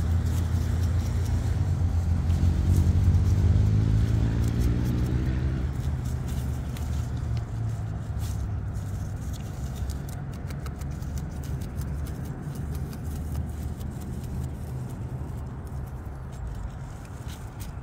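A motor vehicle's engine rising in pitch as it speeds up over the first few seconds, then a steady low rumble that slowly fades. Faint clicks of a beaver chewing leaves and stems come now and then in the second half.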